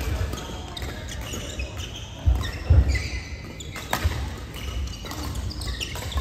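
Badminton play on indoor courts: sharp racket strikes on shuttlecocks, short squeaks of court shoes and heavy thumping footfalls, the loudest thumps a little past the middle.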